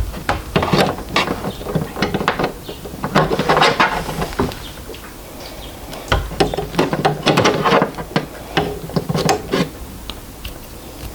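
Plastic printer parts being handled and fitted, with irregular bouts of clicking and rattling.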